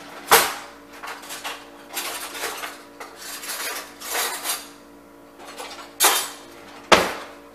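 Metal cutlery and dishes clattering and clinking as utensils are rummaged through for a larger spoon. It comes as a series of sharp clinks and rattles, with the loudest knocks just after the start and twice near the end.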